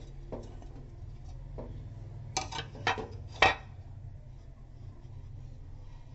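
Steamed corn puttu being turned out of its cotton steaming cloth onto a stainless steel plate: cloth rustling and scraping against the plate, with a few short sharp scrapes and clinks between about two and a half and three and a half seconds in, over a low steady hum.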